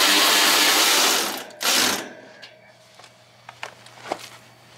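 Cordless drill-driver running: one long run of over a second, then a short burst, driving screws into the sheet-metal service panel of an outdoor HVAC condenser unit. A few light clicks follow.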